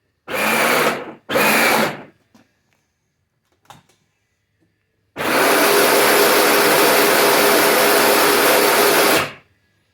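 Power Wheels ride-on car's electric drive motor and gearbox spinning a wheel, run off a DeWalt drill battery through a newly fitted adapter as a test. It gives two short blips, then after a pause runs steadily for about four seconds and cuts off.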